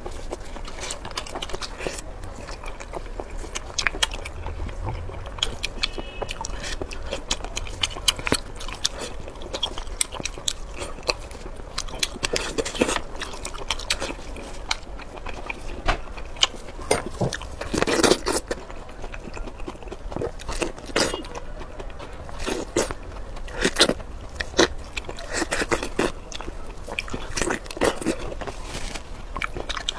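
Close-miked eating sounds: shellfish shells cracked and peeled by hand, then biting and chewing, heard as a run of short, irregular clicks and crackles. The loudest comes a little over halfway through.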